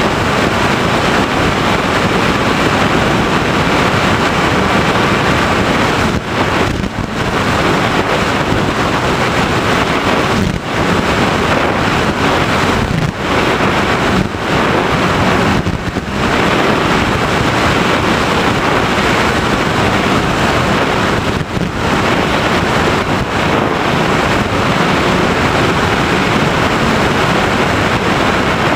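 Loud steady wind rush on the onboard microphone of an FPV model plane in flight, with a faint steady motor-and-propeller whine under it; the noise dips briefly several times.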